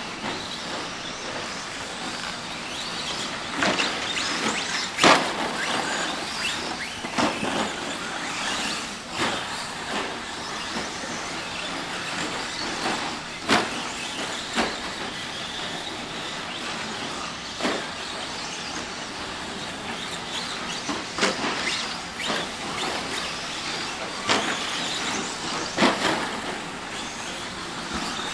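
Several radio-controlled short-course trucks racing on a dirt track: a steady high motor and tyre noise, broken about ten times by sharp knocks as the trucks land and bang about on the course.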